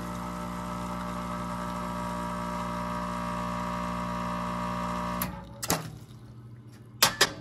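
Espresso machine's vibratory pump humming steadily while it pulls a shot, cutting off suddenly about five seconds in as the brew ends. A click follows, then two sharp clicks close together near the end.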